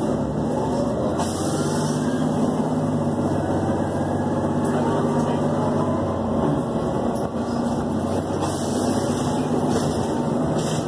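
City bus engine running with road noise, heard from inside the passenger cabin while the bus drives: a steady low engine hum under a constant rumble.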